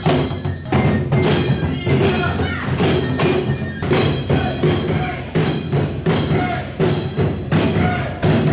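Japanese taiko drums beaten with sticks in a steady rhythm of about two strikes a second, with sharp stick clicks, while a bamboo transverse flute plays short melody notes over them.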